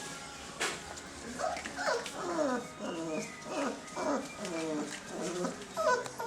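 Puppies whimpering: a rapid run of short whines, each sliding down in pitch, starting about a second and a half in.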